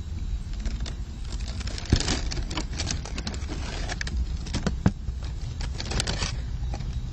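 Irregular crackling and rustling clicks over a steady low rumble.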